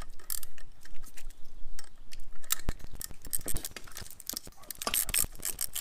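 Hand ratchet clicking as the nut on top of a shock and spring assembly is tightened, with small metal tool clinks. The clicking is sparse at first and comes in a dense run in the second half.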